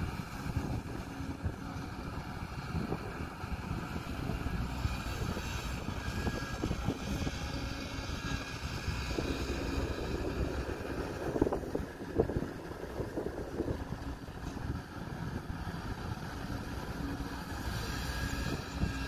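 Kobelco SK140 hydraulic excavator's diesel engine running steadily while it digs and loads a dump truck, with a few knocks and rattles about ten to thirteen seconds in.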